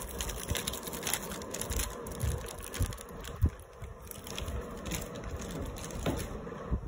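Plastic packet of gram flour crinkling and crackling as it is shaken out over a steel mixing bowl, with scattered soft knocks and one sharp tap about three and a half seconds in.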